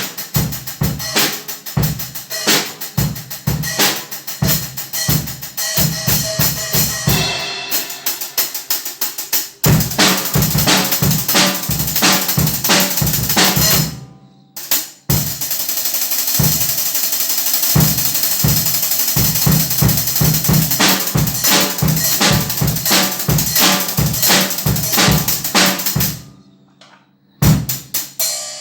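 Drum kit played in grooves and fills, with cymbals ringing over bass drum and snare hits. It stops briefly about halfway through and again near the end.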